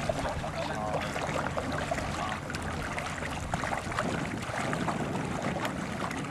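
Water lapping and splashing around a small boat on a lake, with wind noise on the microphone.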